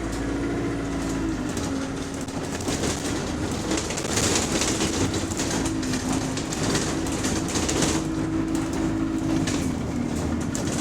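A bus engine running under way, heard from on board, with dense rattling and clattering throughout. The engine note drops in pitch about a second and a half in and again near the end. The title says this engine has a rod knock.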